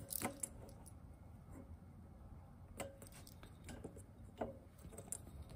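Faint, scattered soft taps and rustles of a kitten batting at a furry wand toy on a blanket, a few separate brushes a second or so apart.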